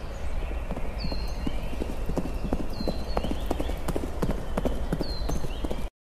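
Horses' hooves clip-clopping in an uneven patter of knocks, with three short, high, falling chirps over it; the sound cuts off abruptly near the end.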